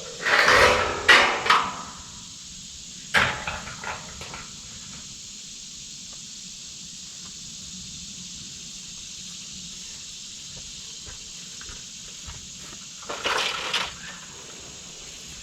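Clattering handling knocks: a cluster of rattles in the first two seconds, a sharp knock about three seconds in with a few lighter ones after it, and another short clatter near the end, over a steady high hiss.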